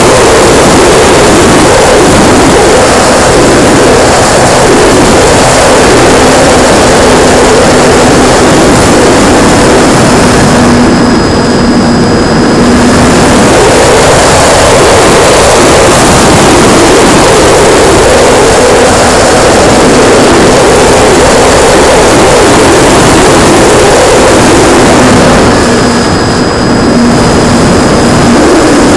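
Radio-controlled P-51D Mustang model's motor and propeller running, picked up by a camera mounted on the plane, with heavy wind rush over the microphone. The hum wavers in pitch and eases off briefly twice, about a third of the way in and near the end.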